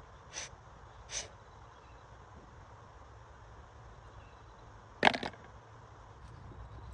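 Short knocks against a low background hum: two light ones in the first second or so, then a louder quick cluster of three about five seconds in.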